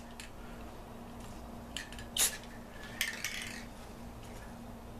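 A few short hissing bursts from an aerosol spray-paint can, the strongest about two seconds in and another about three seconds in, over a steady low hum.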